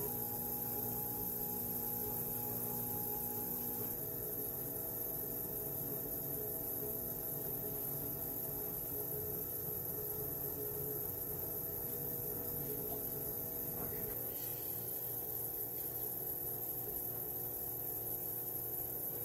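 Electric potter's wheel motor humming steadily as it spins wet clay. A few of its steady tones shift about four seconds in, as with a change in wheel speed.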